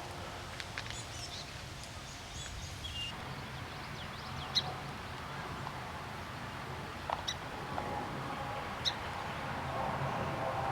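Slowed-down bird calls: scattered short chirps and calls over a steady background hiss and low rumble, with an abrupt change in the background about three seconds in.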